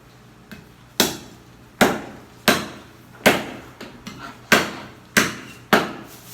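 Cleaver chopping through pork on a chopping block: seven hard, sharp chops, about one every three quarters of a second.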